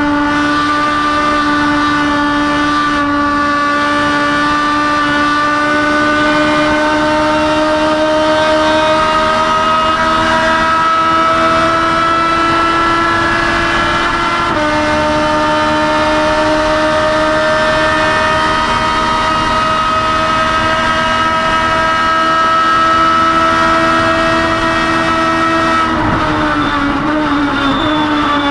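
STC2000 touring car's racing engine heard from inside the cockpit, held at high revs with its pitch climbing slowly along a straight. A short drop in pitch about halfway through marks an upshift. The pitch climbs again, then falls away near the end as the driver lifts off.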